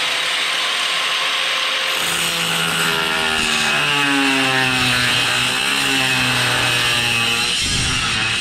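Angle grinder with a thin cut-off disc running at full speed, then cutting into the aluminum snowmobile tunnel from about two seconds in, its pitch wavering under the load.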